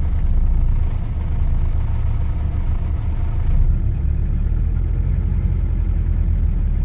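Mitsubishi Triton's 2.8-litre turbo-diesel engine running steadily, warming up toward operating temperature.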